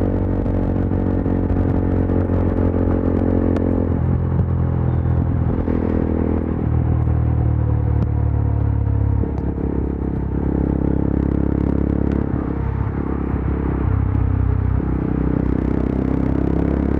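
Yezdi Adventure's single-cylinder engine and exhaust running under way at highway speed, the engine note shifting several times as the throttle and gears change.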